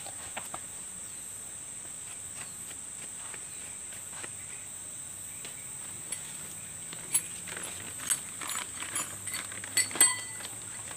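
Steady high-pitched drone of insects. In the last few seconds a plastic bag crinkles as it is handled, with a few sharp clicks and a short metallic clink of small parts inside it.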